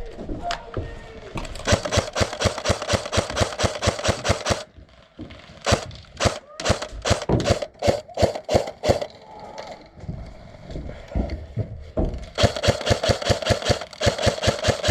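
Airsoft gun firing: a rapid full-auto burst lasting about three seconds, then a string of single shots, then another long rapid burst near the end.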